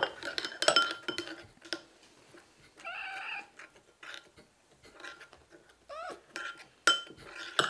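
Kittens mewing: one drawn-out mew about three seconds in and a short rising mew around six seconds, between sharp clinks of dishes.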